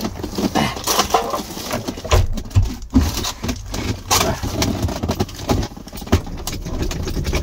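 Irregular knocks, clicks and rattles of hands handling parts around a car's centre console and shifter.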